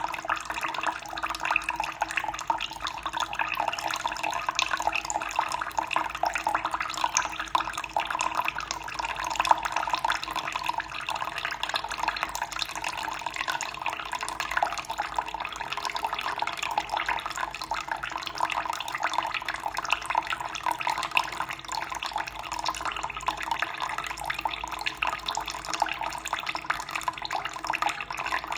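Water running and splashing steadily, with fine trickling and dripping detail.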